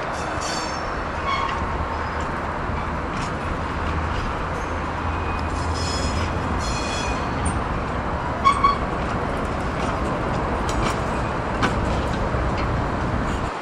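Class 03 diesel shunter running with a steady low engine rumble as it hauls a rake of empty wagons, with scattered metallic clinks and brief squeals from wheels and couplings, and two sharp knocks about two-thirds of the way through.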